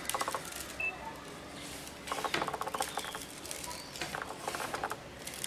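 Crumbled fuska (crisp fried puri shells) crackling and rustling at the outlet plate of a hand-cranked meat grinder, in several short bursts of rapid crackling.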